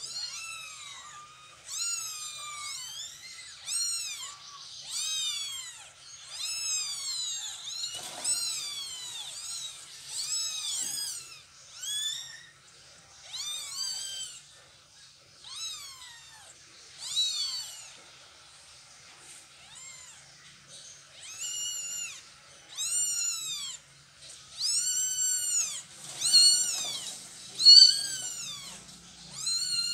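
Newborn kittens mewing: high, thin cries that each rise and fall, repeated about once a second with short pauses, the distress calls of kittens being moved by their mother cat.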